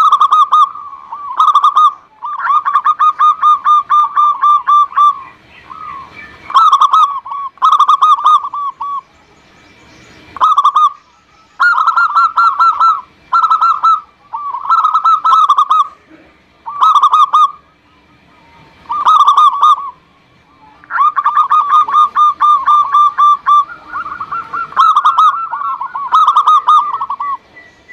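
Zebra dove (perkutut) cooing: repeated phrases of quick rolling coo notes, most about a second long and a few drawn out over two to three seconds, with short pauses between them.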